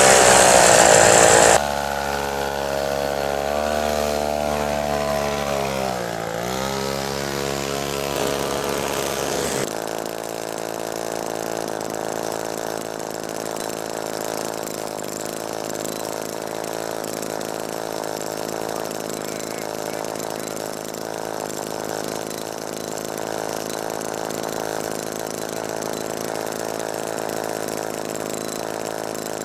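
Small two-stroke chainsaw engine driving a homemade rail go-kart through a V-belt clutch and reduction drive. It runs steadily, its pitch dips and recovers about six seconds in, and from about ten seconds it settles into an even running drone as the cart rolls along the rail. A louder, different sound fills the first second and a half.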